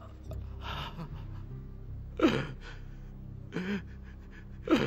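A man's short, gasping sobs, about four of them, each breaking off quickly with a falling pitch.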